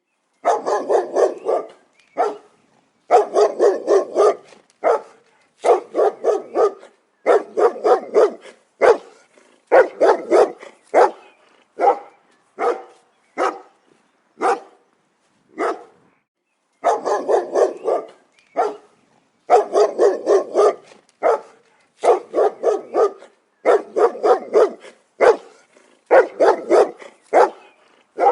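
A dog barking in quick runs of two to five barks, with short pauses between the runs.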